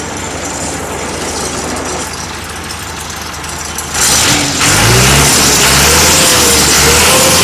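Diesel engine of a Morbark Blizzard 12 drum wood chipper running steadily, then revved up about four seconds in: it gets louder, and a whine rises in pitch and holds high.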